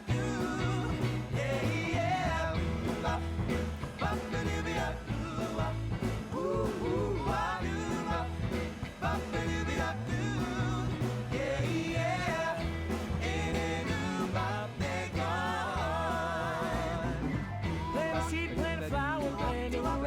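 Background song: a rock-and-roll style track with a sung vocal line over bass and drums.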